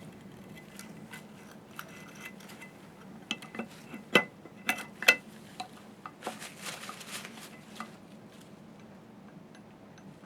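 Small metal parts of a slit lamp's carrier and spindle shaft clicking and clinking, some with a short ring, as the carrier is worked onto the shaft. The sharpest knocks come about four to five seconds in, followed by a second or so of scraping.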